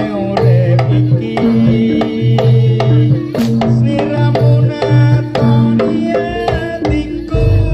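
Live Javanese jaranan ensemble music: quick hand-drum (kendang) strokes over ringing gongs and metal percussion, with low gong notes held underneath.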